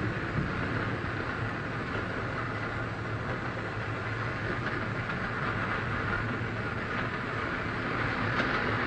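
Steam locomotive hauling passenger coaches into a station: a steady rumble and hiss from the moving train, getting a little louder near the end as it draws closer.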